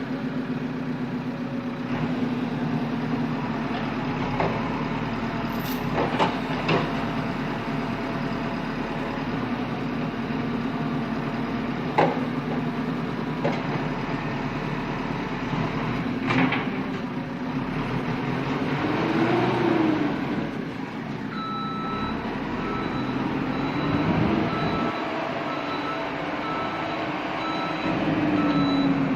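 Backhoe loader's diesel engine running steadily while digging, rising and falling in pitch now and then, with a few sharp knocks of metal on rock. From about two-thirds of the way through, a reversing alarm beeps steadily.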